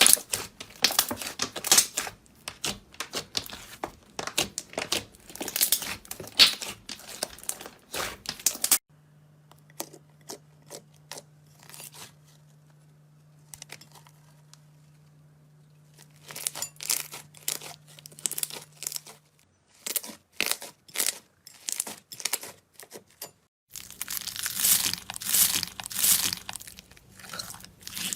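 Slime being squeezed and worked by hand, a dense run of crackling clicks and small pops. About nine seconds in it cuts to a quieter stretch with a low steady hum and only scattered clicks, then the crackling returns.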